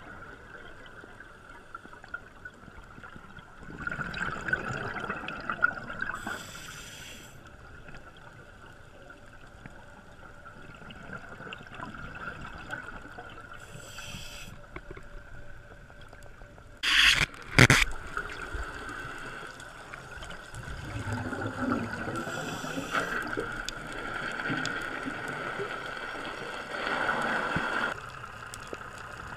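Scuba diver breathing through a regulator underwater: hissing, bubbling surges every few seconds, over a faint steady whine. Two sharp, loud bursts come about two-thirds of the way through.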